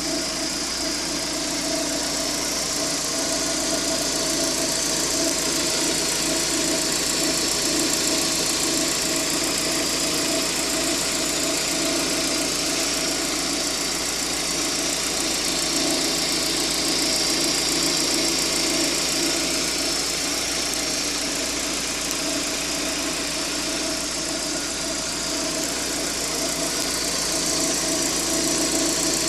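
Proton Prevé's CamPro IAFM+ engine running steadily with an abnormal noise, which the owner takes for a failing intake manifold.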